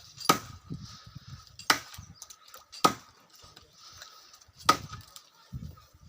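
Wood being chopped with a blade: four sharp strikes a second or two apart, and a weaker fifth near the end.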